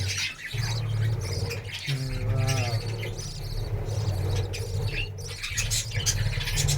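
A colony of budgerigars chattering, with many quick high chirps and squawks overlapping without pause.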